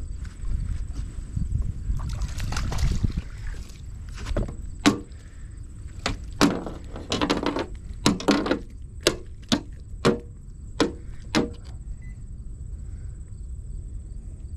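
Splashing and handling noise in a small fishing boat as a smallmouth bass is landed, followed by a string of about a dozen sharp knocks and clatters on the boat over several seconds.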